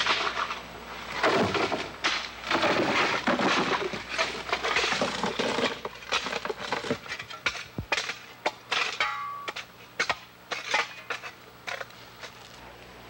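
Long-handled digging tools chopping and scraping into dry, stony soil: irregular scrapes and knocks, dense at first, then sparser and quieter from about halfway through.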